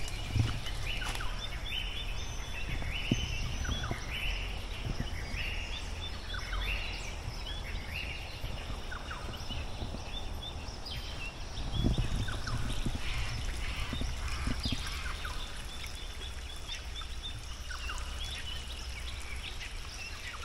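Birds calling over and over in short, high notes, thickest in the first half, above a steady low rumble.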